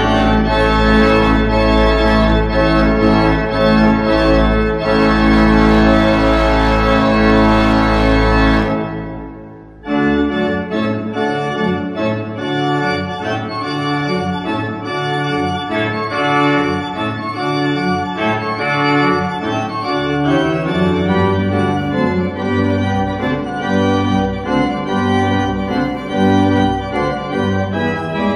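Organ music: full sustained chords over a deep bass fade out about nine seconds in, then a new passage starts abruptly with shorter moving notes and a lighter bass.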